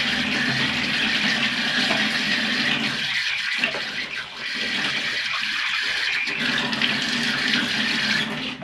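Water running steadily from a bathroom tap into a sink during face washing, the flow briefly dipping twice as hands break into it, then stopping suddenly at the end.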